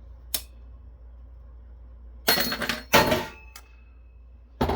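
A heatsink glued onto a circuit-board chip being worked loose by hand: a sharp click, then two loud scraping, clinking bursts about two and three seconds in, the second leaving a short metallic ring, another click and a further burst near the end.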